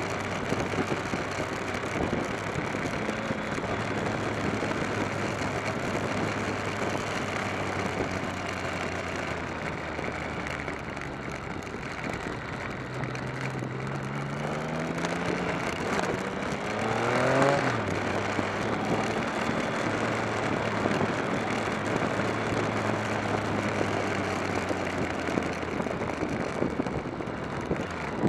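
Motorcycle engine running on the move with steady wind rush over a bike-mounted microphone. About halfway through, the engine note climbs for a few seconds as the bike accelerates, then falls back to a steady cruise.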